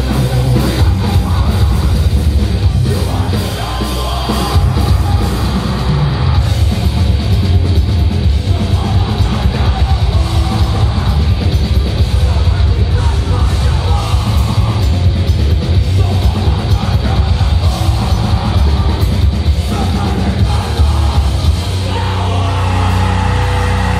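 Heavy metal band playing live: distorted guitars, fast pounding drums and shouted vocals through a loud PA. Near the end the drums drop out, leaving a steadier sustained sound.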